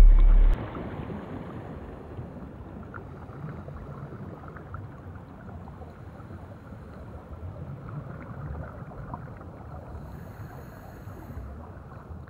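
A deep, loud low boom that cuts off about half a second in, followed by a steady rushing noise.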